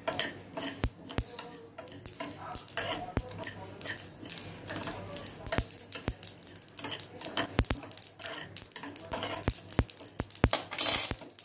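Metal spoon stirring and scraping sesame seeds, poppy seeds and cashews as they dry-roast in a small pan, with many irregular clicks and taps of the spoon against the pan.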